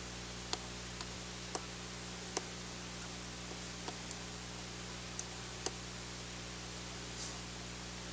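Small, sharp clicks, about eight scattered irregularly, from a screwdriver and small screws being worked out of a Panasonic Toughbook CF-30's LCD housing, over a steady hiss and low electrical hum. A brief scratchy noise comes near the end.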